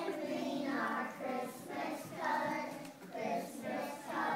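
A group of young children singing together in short phrases of about a second each.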